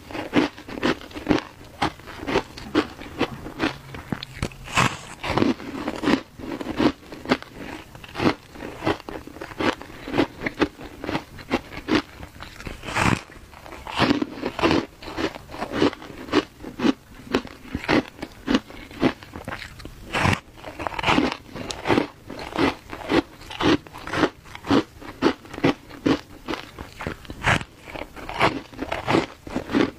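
A block of compressed shaved ice dusted with matcha powder being bitten and chewed, a quick run of crisp icy crunches, about two a second.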